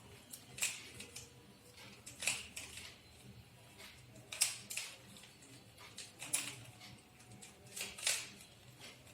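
A plastic Rubik's Cube being scrambled by hand: its layers are twisted in short clicking, rattling bursts about every second or two.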